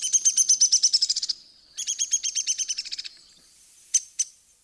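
Downy woodpecker calling: two rapid whinnying runs of high notes, each over a second long and sagging slightly in pitch, then two short sharp single notes near the end.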